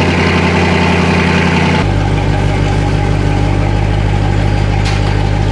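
Dodge Charger engine idling steadily just after a cold start; about two seconds in its low note changes abruptly and it settles into a deeper, steady idle.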